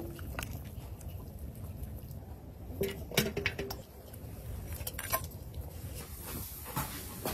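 A metal slotted spoon clinking and scraping against a cauldron and a metal bowl as pieces of stewed beef hoof are lifted out of the broth, with liquid dripping and sloshing. A cluster of short ringing clinks comes about three seconds in, and more clicks follow a couple of seconds later.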